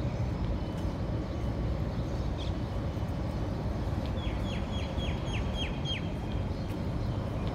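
Steady low rumble of wind on the microphone and street noise, with a quick run of about seven high, falling chirps about halfway through.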